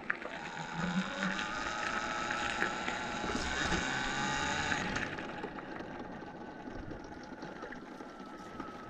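Talaria electric dirt bike's motor whining as it rides along a gravel path, over rolling tyre noise. The whine gets stronger about a second in and drops back about five seconds in as the throttle is eased.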